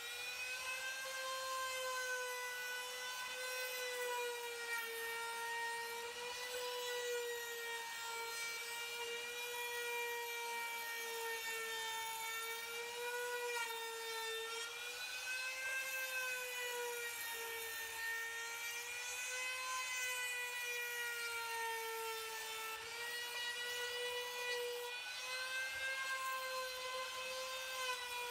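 Electric trim router with a round-over bit running at speed while cutting, a steady high whine whose pitch wavers gently up and down as the bit rounds over the edges of a wooden frame.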